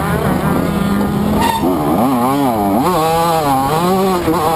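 TM MX 125 two-stroke motocross engine at racing revs. It runs fairly steady at first, then after a short knock its pitch swings up and down several times as the throttle is opened and closed.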